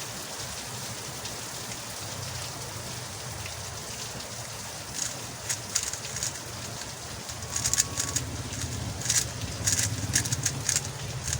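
Steady background hiss, then from about five seconds in a run of quick plastic clicks and clacks from a MoYu Huameng YS3M MagLev 3x3 speedcube being turned fast during a solve, getting denser toward the end.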